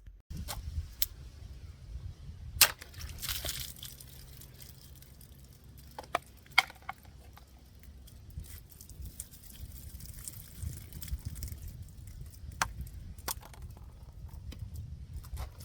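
A serrated folding knife being used to cut, with scattered sharp cracks and snaps over a steady low rumble.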